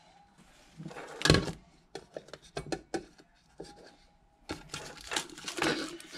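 Plastic sink drain strainer parts handled on a countertop: scattered clicks and knocks, one louder knock about a second in, then plastic wrapping crinkling near the end.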